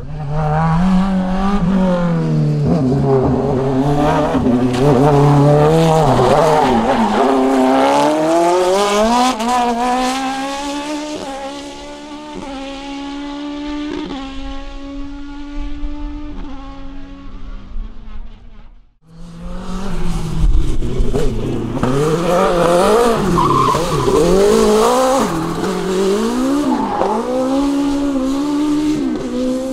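Competition car engines running hard, the pitch climbing and dropping with gear changes and braking. About two-thirds of the way through the sound cuts off abruptly and another car's run starts, its engine note swinging up and down quickly.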